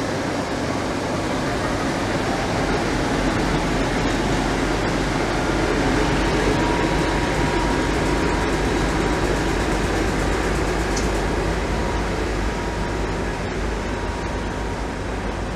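PKP Cargo ST44 (Soviet M62 'Taigatrommel') diesel locomotive running past with its two-stroke V12 diesel engine, a steady engine rumble mixed with wheel and rail noise, with a faint thin whine through the middle.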